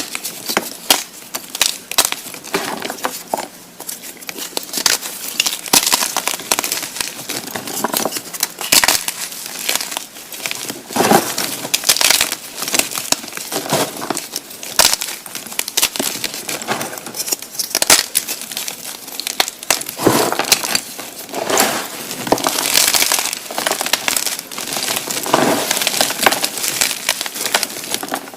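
Blocks of gymnastic chalk being crushed by hand, a steady run of gritty, irregular crunches and crackles.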